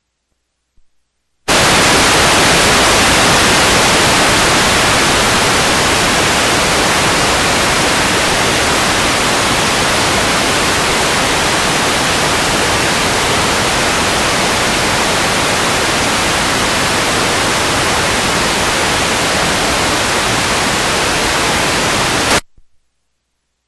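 Loud, even hiss of analog TV static (video snow) on an old videotape recording. It starts abruptly after a second and a half of silence and cuts off suddenly about 21 seconds later.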